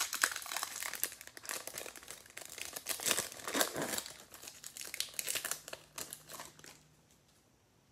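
Foil wrapper of a Panini Select football card pack crinkling and tearing as it is ripped open by hand, with dense crackling that dies away about seven seconds in.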